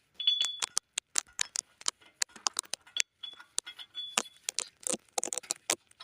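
Small metal drum-brake parts clicking and clinking as they are handled and fitted: a busy run of light clicks, with a few brief metallic rings near the start and again around the middle.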